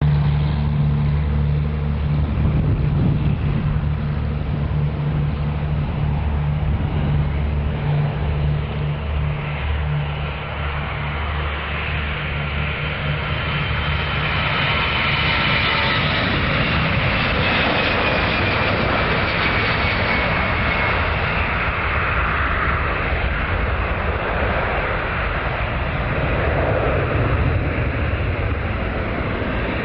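Airbus A319 jet engines at take-off power: a low steady drone at first, growing after about twelve seconds into a loud roar as the airliner lifts off and passes close by, with a thin engine whine falling in pitch as it goes past. The roar carries on as the aircraft climbs away.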